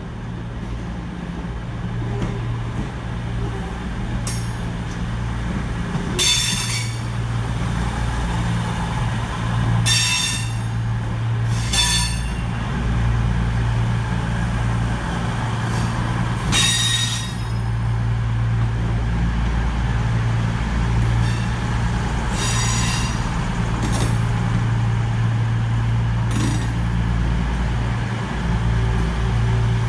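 CrossCountry Class 221 Super Voyager diesel multiple unit pulling into the platform and standing, its underfloor diesel engines running with a steady low hum. About seven short, sharp, high-pitched bursts of brake noise come through over the hum.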